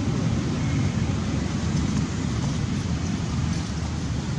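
Wind buffeting the microphone: a steady, uneven low rumble with a faint hiss above it.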